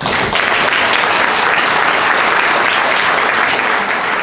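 Audience applauding: dense, steady clapping that starts all at once.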